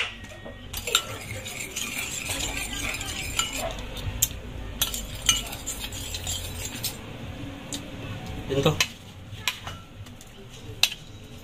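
A metal spoon stirring liquid in a bowl, clinking and scraping against the bowl at irregular intervals.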